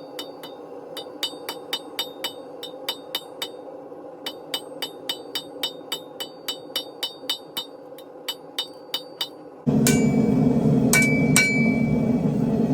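Hammer blows on hot steel over an anvil at a steady rhythm of about three strikes a second, each with a short metallic ring. About ten seconds in, a loud steady rumble suddenly starts, and two more ringing hammer strikes sound over it.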